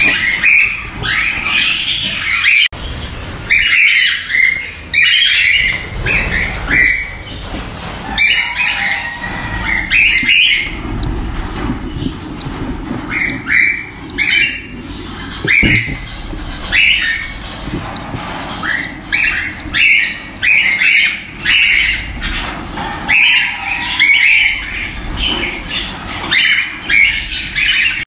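Cockatiels squawking: short calls, repeated in quick runs with a few brief gaps.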